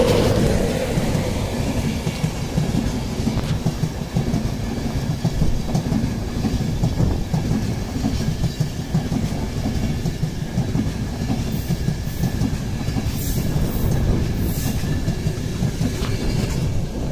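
LNER InterCity 225 express, a Class 91 electric locomotive hauling Mark 4 coaches, passing close by: the locomotive's humming tone fades within the first second, then the coaches' wheels keep up a steady rumble and clatter over the junction rails. A few brief high hisses come near the end.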